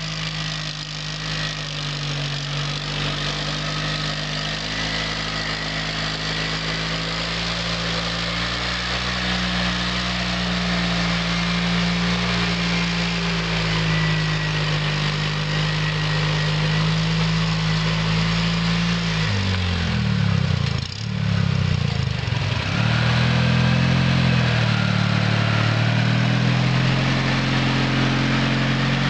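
Homemade tractor's two-cylinder VAZ Oka car engine running steadily under work. About twenty seconds in, the engine speed wavers and dips sharply for a couple of seconds, then picks back up and runs on.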